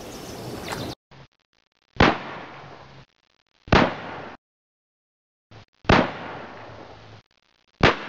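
Title-animation sound effects: four firework-like bangs about two seconds apart, each sudden at the start and fading over about a second, with a smaller pop before the first and the third. For the first second, steady outdoor poolside ambience with bird chirps, which cuts off abruptly.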